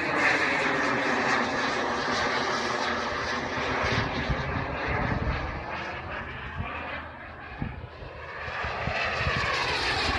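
KingTech turbine of an RC model jet running in flight, its whine sweeping in pitch as the plane passes, dropping off about seven to eight seconds in and growing loud again near the end.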